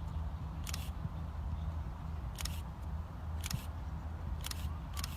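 Camera shutters firing in short clicks, about five times, over a steady low rumble.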